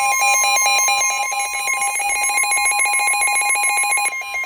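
Emergency alert attention tone: a loud, steady electronic alarm tone that sounds before a severe thunderstorm warning is read out.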